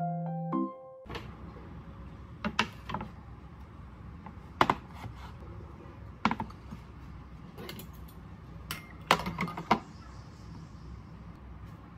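Piano background music cuts off about a second in. After that there is a low steady room hum and scattered light clicks and taps, with a few quick groups of two or three and a cluster about nine to ten seconds in.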